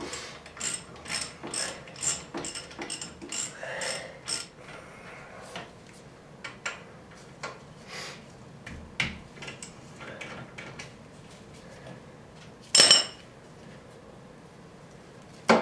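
Hand ratchet clicking in short runs while bolts are worked at the front brake of a Jeep with the wheel off: several clicks a second at first, then sparser. A louder clatter comes about thirteen seconds in, and a sharp knock at the end.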